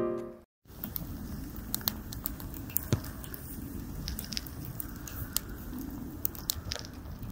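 Firewood logs burning in a fire pit, crackling: a steady low rush of flame with frequent sharp pops and snaps.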